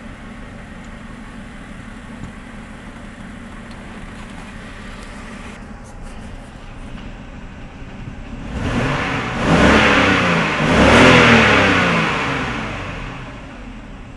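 Six-cylinder BMW engine idling, then revved up for a few seconds about eight seconds in, rising in pitch twice before falling back to idle. The engine has a misfire, now on cylinder 5 after the coils were swapped, which the mechanic puts down to a probably faulty ignition coil.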